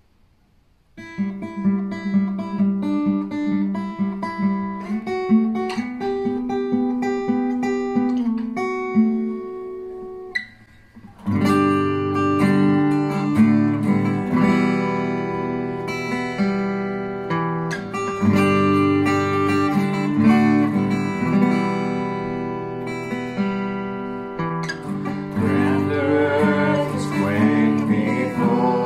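Acoustic guitar music starts after about a second, dips briefly partway through, then carries on as fuller strumming. Near the end a man's voice starts singing over the guitar.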